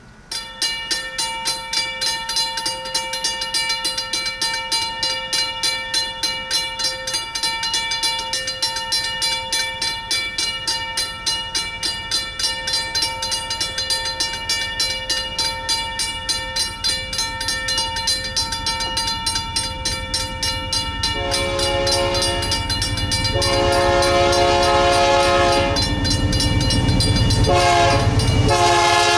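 A railroad grade-crossing bell starts suddenly and rings in a steady, even rhythm of a few strokes a second. About two-thirds of the way through, the lead diesel locomotive of a BNSF intermodal train sounds its air horn for the crossing: two long blasts, a short one, then another long one, over the rising rumble of the approaching train.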